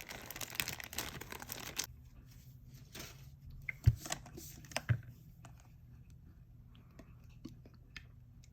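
Crinkling of plastic packaging as cotton balls are taken out, stopping about two seconds in. Then a few light knocks and clicks of small items handled on a desk, the loudest two around four and five seconds in.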